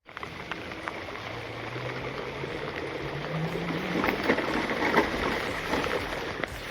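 Electric scooter ridden over rough ground: a steady noisy rumble with scattered crackles and knocks, and a low hum that rises in pitch over the first few seconds.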